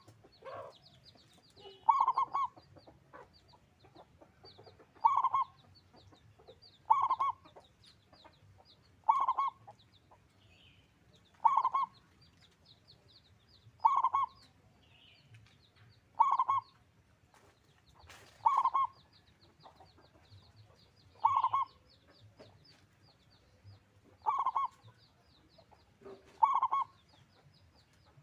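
Male zebra dove (perkutut) singing its cooing song: about eleven short calls, one every two to three seconds.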